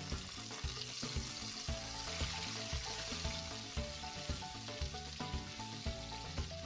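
Marinated chicken pieces sizzling steadily as they fry in hot oil and caramel in a wok. Background music with a steady beat plays underneath.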